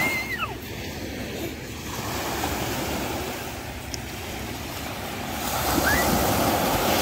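Sea surf washing onto a sandy beach, a steady wash of breaking waves that swells louder about six seconds in as a bigger wave breaks.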